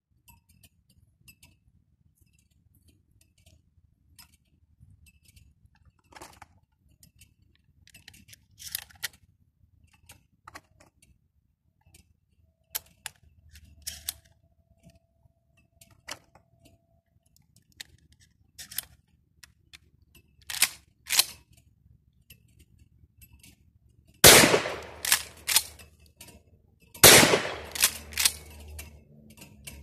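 Manuchasse Rapid pump-action shotgun: metallic clicks and knocks of the gun being handled and loaded, then two loud shots of birdshot about three seconds apart in the last quarter, each followed by quick clacks of the pump being worked.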